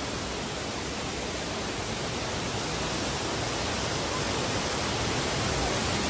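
Waterfall cascading down over rocks at close range: a steady, even rush of falling water that grows slightly louder toward the end.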